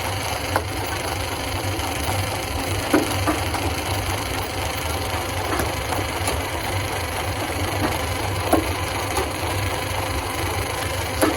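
Stone crushing machine running with a steady low drone, with sharp knocks of rock being struck or cracking about five times, a few seconds apart.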